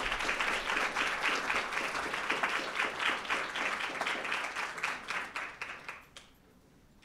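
Audience applauding: dense clapping that fades out about six seconds in.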